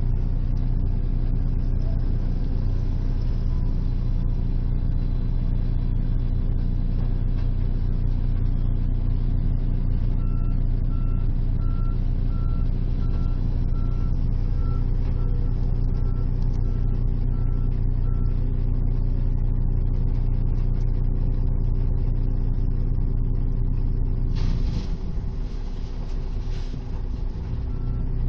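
Liebherr L566 2plus2 wheel loader's diesel engine running steadily under load, with its reversing alarm beeping about twice a second for several seconds in the middle and again at the very end. Near the end a couple of seconds of rushing noise cover the engine.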